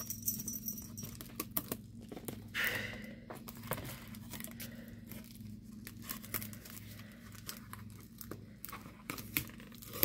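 Plastic and paper packaging being opened by hand: crinkling and tearing, with scattered light clicks and a longer rustle about two and a half seconds in.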